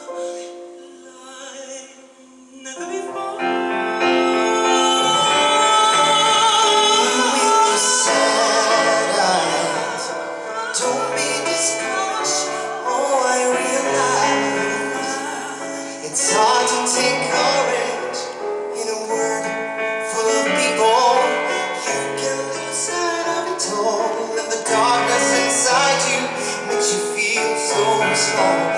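Singing of a pop ballad with instrumental accompaniment. It is soft at first and fills out about three seconds in.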